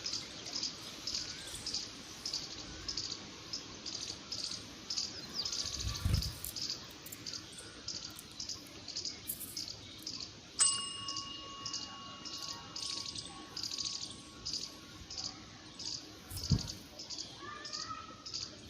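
Indian palm squirrel calling with a steady run of short, high-pitched chirps, about two a second. About ten seconds in, a bell-like ding rings out and fades over a few seconds, and there are two dull low thumps.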